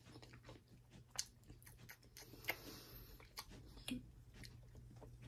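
Faint chewing of soft, tender chicken and stuffing, with a few soft mouth clicks.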